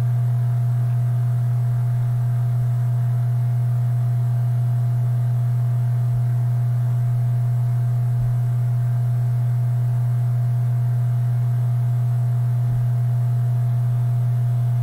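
Steady low electrical hum: one constant low tone with fainter, higher tones above it.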